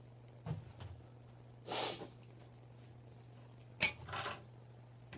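Two short, breathy huffs, about two seconds and four seconds in, with a sharp click just before the second and a soft knock near the start, over a steady low hum.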